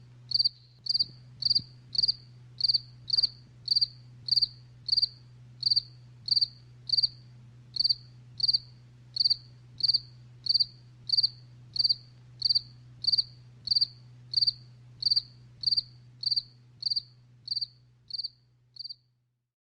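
Jangkrik genggong cricket chirping: short, high-pitched chirps evenly spaced about one and a half a second, growing fainter over the last few seconds and stopping shortly before the end. A faint steady low hum runs underneath.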